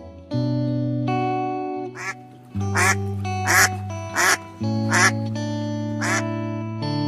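A duck quacking about seven times in short, separate calls over background music of long held notes.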